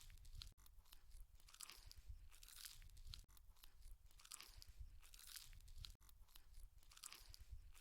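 Faint crunching and chewing as a person eats spicy chicken feet curry, the crackly chews coming about once a second.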